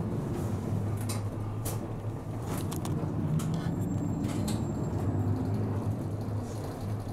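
Cabin noise of a city bus moving slowly: a steady low engine drone with sharp rattles and clicks from the interior, heard from inside the bus.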